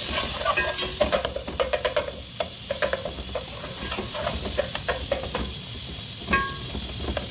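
Chopped tomatoes sizzling in oil in a steel pot while a slotted metal spatula stirs and scrapes across the pot bottom in many quick strokes. A little after six seconds the spatula strikes the pot once, louder, with a brief metallic ring.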